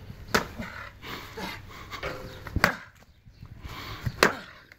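Three sharp chopping blows from a long-handled tool swung overhead, the strikes spaced roughly two seconds apart.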